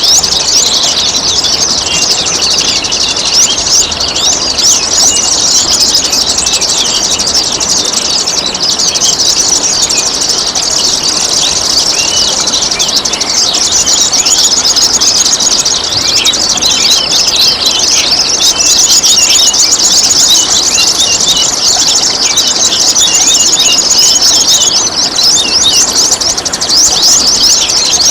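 Songbirds singing continuously in a dense stream of rapid high chirps and trills, over the steady trickle of running water.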